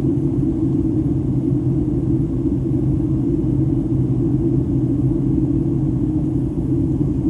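Steady in-flight cabin noise of a Boeing 757: an unbroken low rumble of engines and airflow heard from inside the passenger cabin, with a steady low hum.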